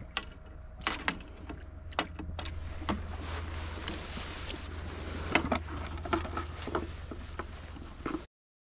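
A hooked carp splashing at the water's surface while it is handled on the line, with irregular knocks and clicks from the handling, over a steady low hum. The sound cuts off abruptly near the end.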